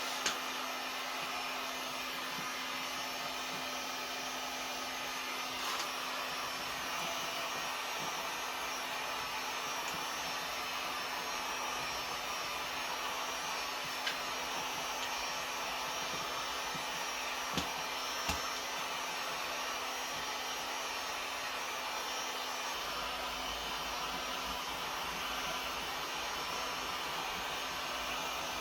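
Heat gun running steadily: a constant airy hiss under a steady low hum, with a few faint clicks.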